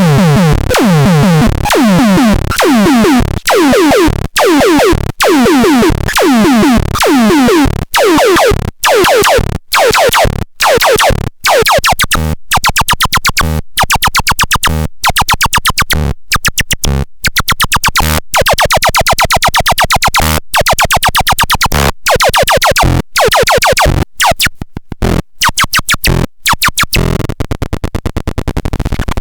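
Loud electronic synthesizer music: a harsh, dense synth sound chopped into rhythmic stutters that grow faster and faster, giving way to a steady buzzing tone near the end.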